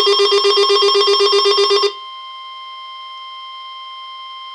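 Weather radio alert alarm for a flash flood warning, beeping in rapid pulses, cutting off suddenly about two seconds in. A quieter steady tone carries on after it, typical of the NOAA Weather Radio warning alarm tone that precedes the voice message.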